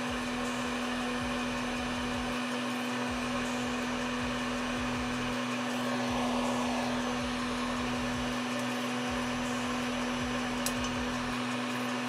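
Hot-air popcorn maker's fan and heater running with a steady whir and a constant low hum, the kernels still heating and not yet popping.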